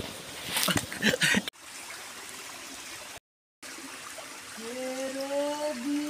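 Young men laughing and shouting. After an abrupt cut comes the steady rush of a rocky stream, and about four and a half seconds in a man's voice holds a long sung note.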